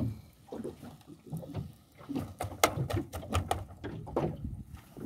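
Water slapping against the hull of a small open boat, with a quick run of sharp clicks and knocks about halfway through as utensils are handled on board.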